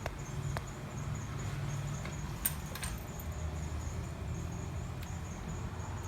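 A few faint clicks and light scraping of small metal parts being handled at a workbench, over a steady low hum.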